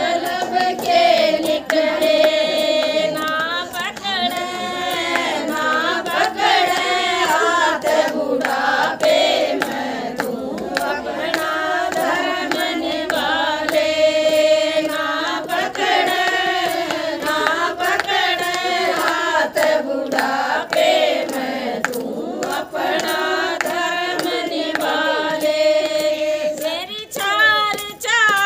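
A group of women singing a Haryanvi devotional bhajan together without instruments, with hand claps keeping the beat.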